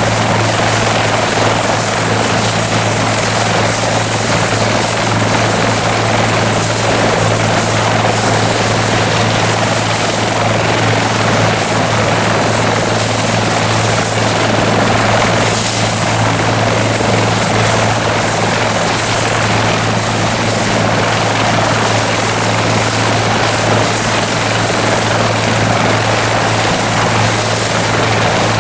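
Bell 412 twin-turbine helicopter running steadily at close range: a continuous rotor and engine din with a thin, steady high whine over it, holding an even level with no rise or fade.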